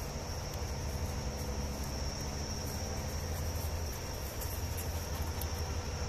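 Insects chirring steadily in one high, unbroken band, with a low rumble underneath.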